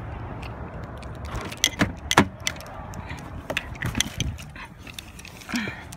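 Keys jingling and a quick run of clicks and knocks as a person opens a car door and gets in, the loudest knock about two seconds in.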